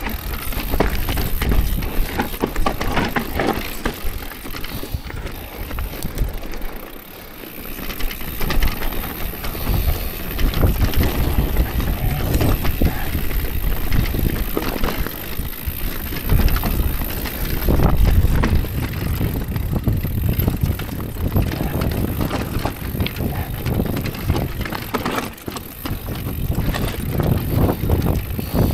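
Orbea Rise e-mountain bike riding down rocky singletrack: tyres crunching over loose stones and rock slabs, and the bike clattering and rattling with many irregular knocks as it hits the rocks, over a steady low rumble. The ride goes briefly quieter about 7 seconds in.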